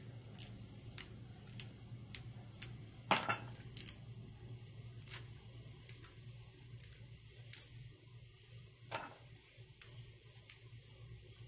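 Fresh lily bulb scales snapped and peeled apart by hand, giving small irregular crisp clicks and crackles, with a louder snap about three seconds in and another near nine seconds, over a low steady hum.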